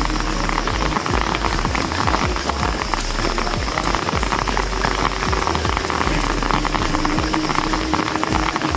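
Heavy rain falling steadily, a dense patter of drops on wet concrete and leaves.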